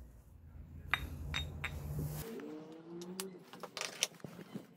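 Small metal drivetrain parts of a scooter clinking and tapping as they are handled during belt-drive assembly, a few separate clicks and then several in quick succession in the second half. A low steady hum underneath cuts off about two seconds in.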